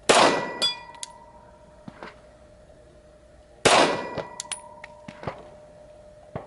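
Two 10mm pistol shots from a Glock 40 Gen 4 MOS, about three and a half seconds apart. Each crack is followed by a ringing metallic tone and a few light clinks.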